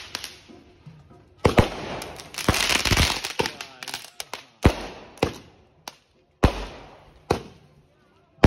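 Aerial fireworks bursting overhead: a series of sharp bangs at uneven intervals, each trailing off, with a burst of dense crackling about a third of the way through.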